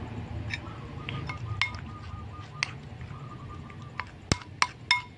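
Metal spoon stirring a wet sauce in a porcelain plate, clinking and scraping against the china. There is a scattering of sharp clinks, and three of the loudest come close together near the end.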